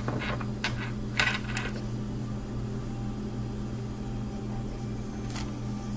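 A deck of tarot cards handled in the hand: a few light clicks and flicks of the cards in the first second and a half and once more near the end, over a steady low electrical hum.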